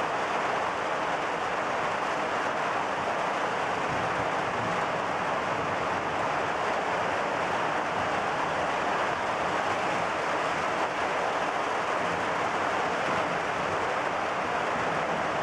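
Steady rain falling in a thunderstorm, an even rushing hiss with no thunderclap.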